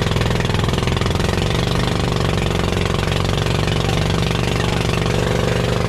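Boat engine running steadily, with a fast, even firing beat.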